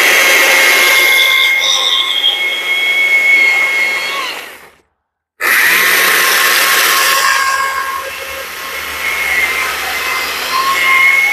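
Cordless battery chainsaw with a carving bar cutting into a block of wood: a steady high electric whine over the rasp of the cut, which stops about four and a half seconds in and starts again sharply about a second later. The chain is worn, on its last legs.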